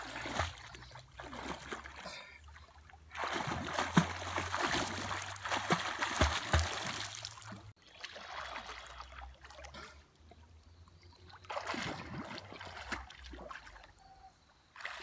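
Water splashing and sloshing as a snorkeller swims and paddles through a shallow river, in uneven bursts with quieter lulls between them; the longest and loudest stretch comes a few seconds in.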